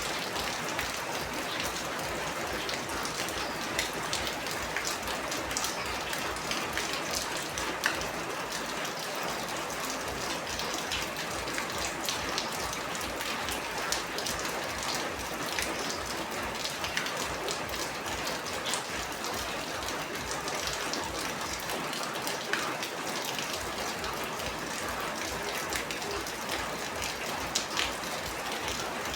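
Steady heavy rain falling, a constant hiss with scattered louder drops ticking and splashing on a surface.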